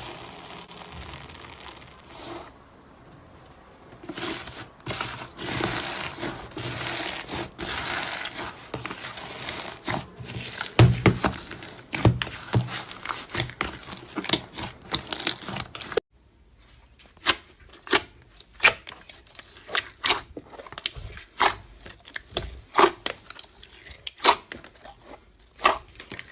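Slime being squeezed and worked by hand, a continuous crackly noise for the first half. After a sudden cut, a run of sharp popping clicks, about one or two a second.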